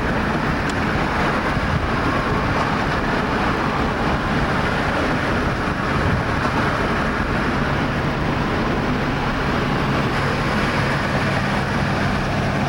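Steady road noise from inside a moving car: an even rush of tyres and wind, with a low engine hum showing more clearly near the end.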